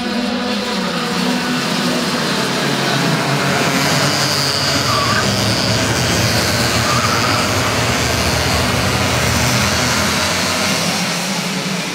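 A pack of 60cc two-stroke racing karts running hard, with many high engine whines overlapping. The engine noise grows fuller and louder for several seconds in the middle as the pack goes by.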